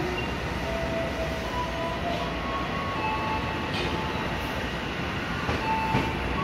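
CC 300 diesel locomotive running as it creeps slowly forward to couple onto freight wagons. Faint short squealing tones come and go, and a few light clicks sound near the end.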